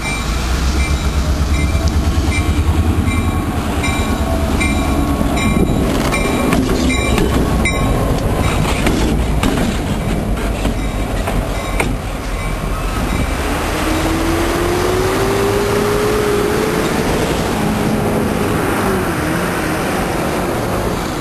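Norfolk Southern diesel locomotive passing close by: a heavy engine rumble and wheels running over the rails, loudest in the first few seconds. A bell dings steadily about once a second for the first several seconds. Later a tone rises slowly and levels off.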